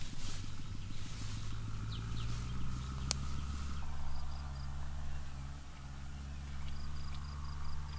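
Rustling through tall grass over a steady low hum, with one sharp click about three seconds in. Short runs of high, quickly repeated chirps come twice, the second near the end.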